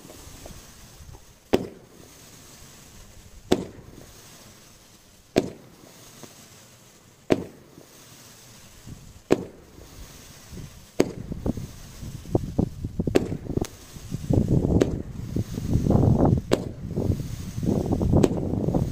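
Glitter Willow Tail 16-shot 1.4G firework cake firing: a sharp launch report about every two seconds through the first half, then quicker, smaller pops and crackle over a growing low rumble.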